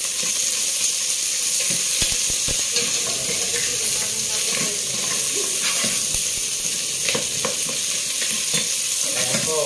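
Crabs, garlic and onion sizzling in a hot stainless steel pot while a wooden spoon stirs them, with a steady frying hiss and the spoon knocking and scraping against the pot now and then.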